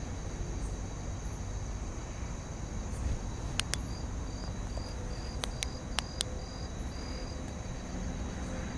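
Crickets and other night insects chirping in steady high tones, with a run of short, evenly spaced chirps starting about four seconds in. A few sharp clicks sound around the middle over a low background rumble.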